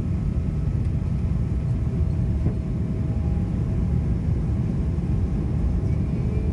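Airplane cabin noise during the climb after takeoff: a steady low rumble of engines and airflow heard from inside the cabin, with a faint steady hum above it.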